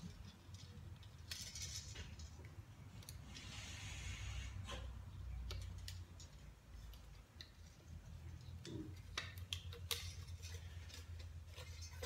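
Faint clicks and light scrapes of pliers and steel wire being worked through a wooden beehive frame as the wire is threaded and pulled tight, with a longer scraping sound from about three and a half seconds in.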